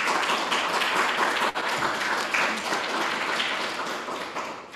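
An audience applauding, a steady patter of many hands clapping that dies away near the end.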